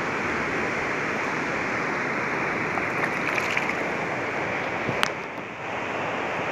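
Steady rushing of shallow water lapping around a wading puppy. A few faint ticks come a little past the middle, and one sharp click comes about five seconds in.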